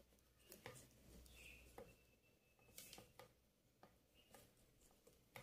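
Near silence with faint, scattered scratches and clicks of plastic craft wire being pushed through the tight weave of a plastic-wire basket.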